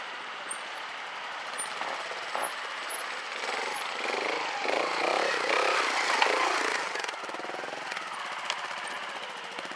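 Trials motorcycle's single-cylinder engine running with a rapid, even pulsing beat, getting louder from about four seconds in to about seven, then dropping back.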